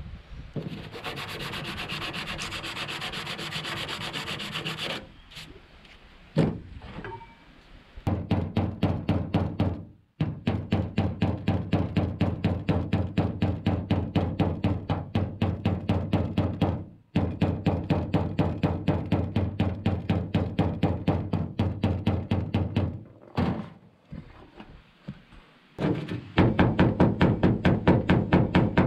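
A few seconds of steady scraping on the truck's sheet-metal roof, then long runs of rapid hammer-and-dolly blows, about five a second, each leaving a short metallic ring. The blows are straightening the cab roof edge along the drip rail of a Chevy K10 truck cab.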